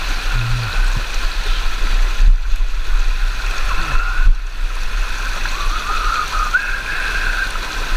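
Fast, high-running river water flowing steadily around a wading angler, with a fluctuating low rumble underneath.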